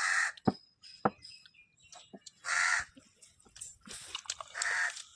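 A crow cawing three times, each a harsh call of about half a second, with a few light clicks in between.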